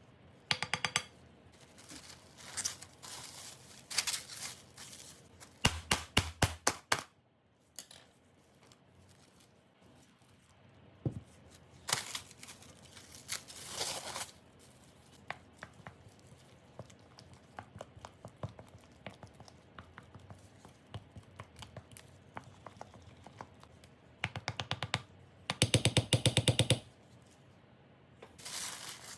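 Kitchen utensils clicking, tapping and scraping against bowls and containers, with two short runs of quick repeated strokes, about six seconds in and near the end.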